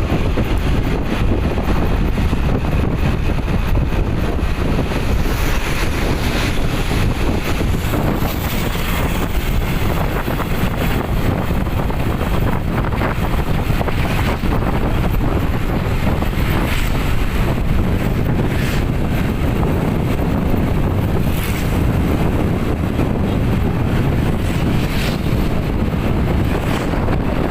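Loud, steady wind buffeting the microphone over a low rumble, like the noise of riding along on a moving vehicle.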